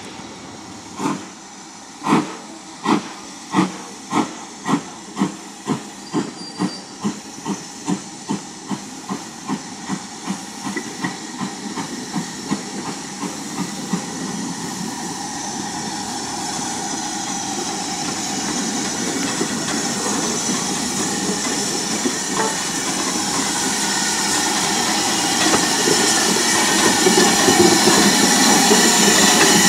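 LMS Ivatt Class 2MT 2-6-2 tank engine 41241 pulling away from a stand: sharp exhaust beats start about a second in and quicken steadily until they run together after about fourteen seconds. Then comes a continuous hiss of steam and rumble, growing louder as the locomotive comes alongside.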